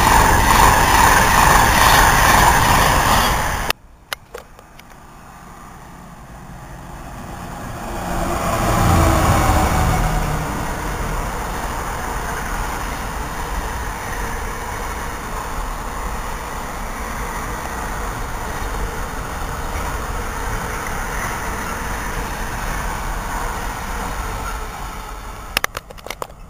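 A Class 390 Pendolino electric train passing at speed, cut off suddenly about four seconds in. Then a freight train approaches and passes, loudest about nine seconds in, followed by a long, steady rumble of its container wagons rolling by.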